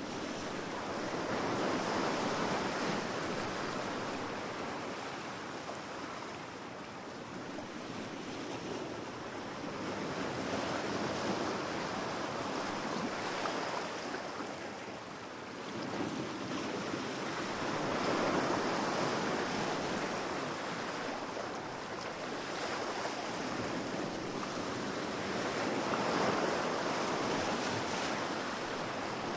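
Sea waves breaking on a beach, a continuous wash of surf that swells and falls back in slow surges about every eight seconds.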